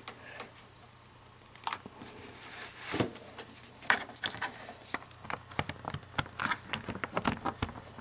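Handling noise of a data cable and its plug being worked at a laptop's side ports: scattered light clicks and taps, with one stronger knock about three seconds in and quicker small clicks toward the end.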